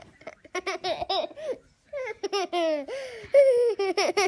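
Toddler laughing close to the microphone: two runs of high-pitched giggles with a short break about halfway through.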